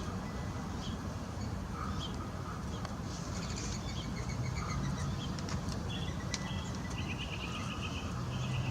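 Birds chirping: scattered short calls, with a quick run of repeated high notes near the end, over a low steady rumble.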